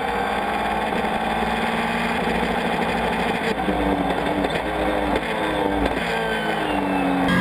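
Dacia Duster No Limit race car's engine heard from inside the cockpit, running hard under load. In the second half it revs up and drops back several times in quick succession.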